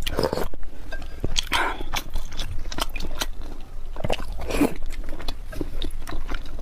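Close-miked eating sounds: a person biting and chewing food, with many sharp wet clicks and a few louder mouthfuls near the start, about a second and a half in, and about four and a half seconds in.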